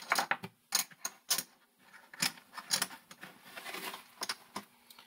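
Casino chips clicking against one another as they are picked up, counted and stacked: an irregular run of sharp clicks with short pauses between.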